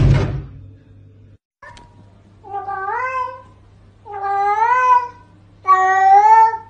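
A loud thump at the very start, then three long meows, each rising and then held for just under a second, coming about a second and a half apart and getting louder.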